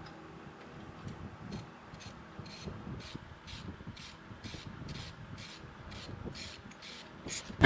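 Ratchet wrench tightening the bicycle crank-arm bolt: a run of short rasping pawl clicks on each back-swing, about two a second, ending in a sharp knock.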